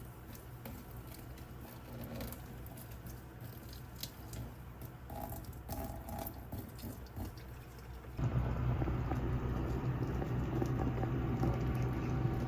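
Light clicks and handling noises around a kitchen sink, then from about eight seconds in a steady, louder scrubbing as the sink is cleaned.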